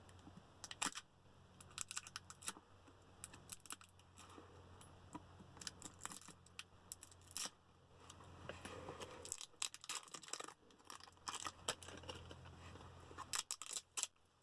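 Cutting and working at a product's packaging to get it open: faint, scattered small clicks and scrapes at irregular intervals.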